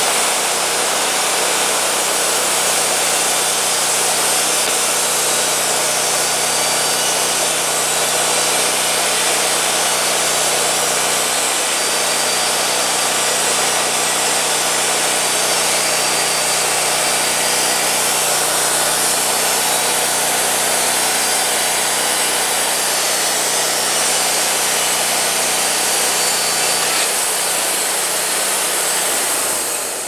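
Wood-Mizer LT40 Wide band sawmill cutting along a pine log: the engine runs steadily under load beneath the loud hiss of the band blade in the wood. The cutting noise drops off sharply right at the end.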